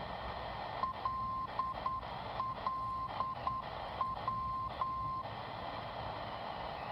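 Tecsun PL-368 radio's speaker playing non-directional beacon LLW on 254 kHz: a tone keys the Morse identifier L L W (dot-dash-dot-dot, dot-dash-dot-dot, dot-dash-dash) once, over a steady hiss of longwave static.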